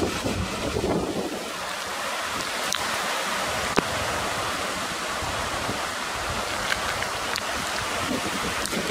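Steady rush of heavy cyclone rain, wind buffeting the microphone and fast-flowing floodwater, with a few sharp clicks, the loudest a little under four seconds in.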